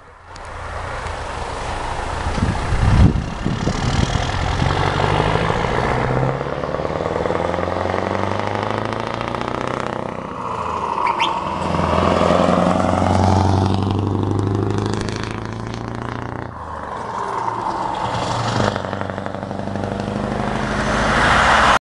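Scania R580 truck with a livestock trailer driving by, its V8 diesel engine running with a low hum whose pitch shifts as it approaches and passes, over steady road and tyre rush.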